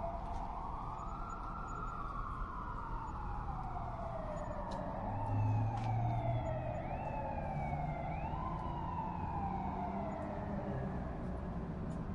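Two emergency vehicle sirens sounding together: a slow wail that rises and falls over several seconds, and a fainter, higher siren with quick repeated rises in the middle. A low rumble swells briefly about five seconds in.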